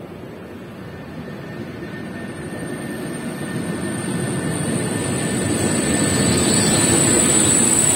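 ČD class 362 electric locomotive hauling a passenger train, running in and passing close by: a steady rumble of wheels on rail that grows louder throughout, with a high steady whine joining about three seconds in.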